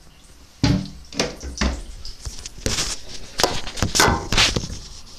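Irregular knocks, bumps and rubbing of a phone being handled and repositioned close to its own microphone, starting about half a second in.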